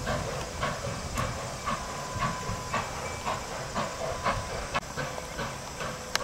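Nickel Plate Road 765, a 2-8-4 Berkshire steam locomotive, chuffing slowly and evenly as it approaches, about two exhaust beats a second, with a steady steam hiss. A sharp click near the end.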